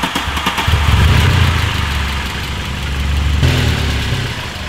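Mark III Volkswagen Jetta's 2.0-litre ABA four-cylinder engine, run with no oil in it, catching from its start in the first second and then idling steadily, with no knock heard yet.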